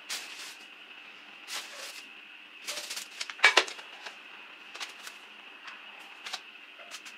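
Irregular sharp clicks and knocks, with a quick run of them a little past halfway being the loudest, over a faint steady high-pitched hum.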